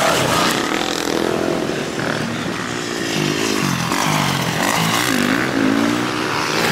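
Motocross dirt bikes revving on the track, the engine pitch dropping and climbing again several times.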